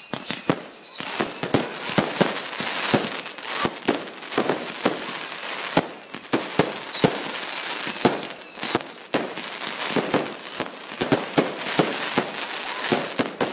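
A barrage of professional-grade fireworks going off: rapid, irregular bangs, several a second, over continuous crackle and a high, wavering whistle.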